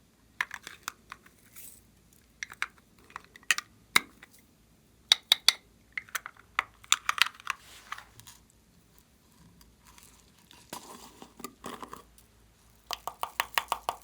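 Slime being squeezed and kneaded by hand, giving irregular bursts of sharp sticky clicks and crackling pops, with a quick run of rapid pops near the end.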